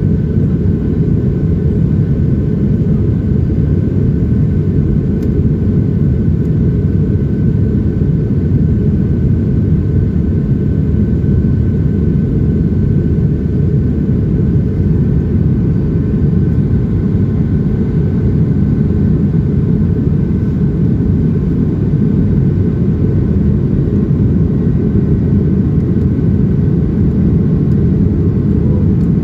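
Steady cabin noise inside a Boeing 737-700 in flight: a loud, even low rumble from its CFM56-7B jet engines and the airflow, with a faint steady whine above it.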